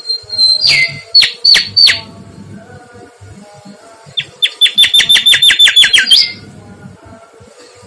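Mangrove whistler singing. It gives a phrase of loud whistled notes that slide downward, then, after a pause of about two seconds, a fast run of about a dozen repeated sharp notes that ends on an upward note.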